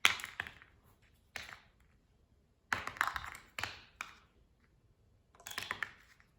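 A handheld fidget toy being worked by hand: sharp clicks and taps in several short clusters, with quiet gaps between.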